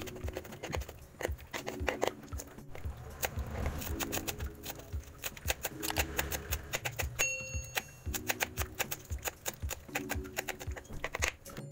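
Rapid knife chopping on a wooden cutting board, many quick taps as garlic and then spring onion are minced, over soft background music. A short chime sounds about halfway through.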